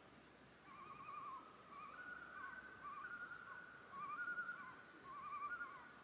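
Common loons calling: several quickly wavering tremolo calls, one overlapping another that holds a longer, steadier wail.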